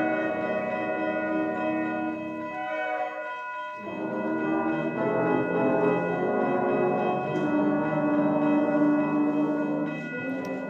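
Concert wind band with piano playing sustained chords. The low instruments drop out and the sound thins briefly about three seconds in, then the full band comes back in at about four seconds.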